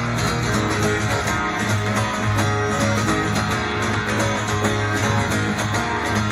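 Boogie rock band playing an instrumental passage between vocal lines: strummed guitar over a steady, unbroken groove.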